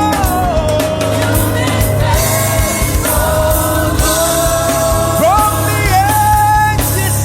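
Live gospel worship music: a singer holds long, sliding notes over a band with a steady bass.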